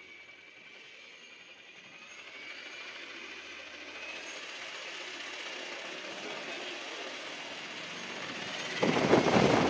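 Large homemade brushless electric motor with a metre-wide propeller spinning up on a thrust test, its electric whine slowly rising in pitch and loudness. About nine seconds in it goes to full power, drawing around 300 amps, and a sudden loud rush of air from the propeller takes over.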